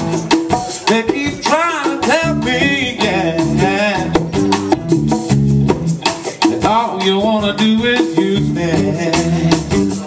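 A live blues band playing: guitars, bass and drums in a steady groove, with a wavering, pitch-bending melody line over the top.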